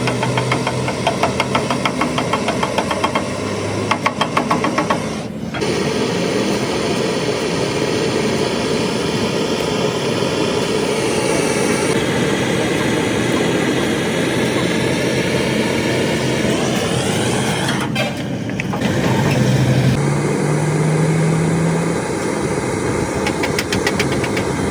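Bus diesel engine running, with a rapid regular knocking for the first few seconds and a rising pitch about two-thirds of the way through as it revs. The sound breaks off abruptly twice.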